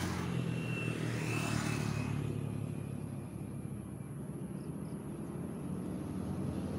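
A low, steady engine drone, dipping a little midway and growing louder near the end.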